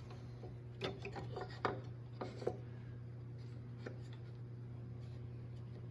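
Pieces of wood and a dovetail jig being handled: a few light knocks and rubbing in the first half, then only a steady low hum.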